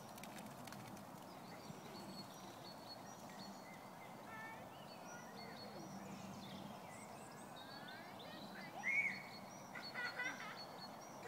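Faint outdoor background with scattered distant high-pitched calls and chirps. The loudest, a short rising-and-falling call, comes about two-thirds of the way through, and a few quick repeated calls follow near the end.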